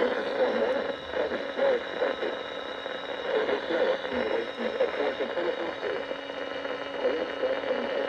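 Radio broadcast heard through heavy static and hum, with an indistinct, muffled voice under the noise.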